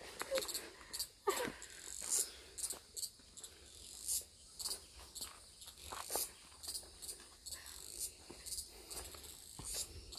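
Insects chirping in short, repeated high-pitched bursts, with a few soft knocks now and then.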